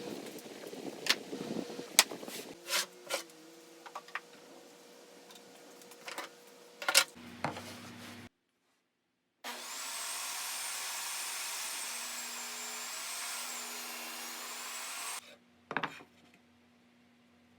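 Wooden knocks and clicks as workpieces are handled. Then, after a cut in the audio, a woodworking power tool runs steadily through wood for about six seconds with a high, slightly wavering whine, stops, and is followed by a couple more knocks.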